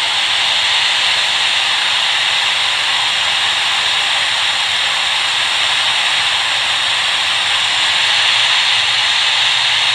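Hot-air rework station blowing a steady hiss of hot air onto the board, reflowing the solder under a new Tristar charging IC so the chip can settle onto its pads.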